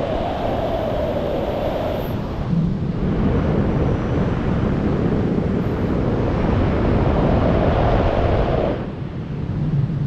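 Freefall wind rushing over the microphone of a wingsuit flyer's helmet-mounted camera: a loud, steady rush of air that eases briefly near the end.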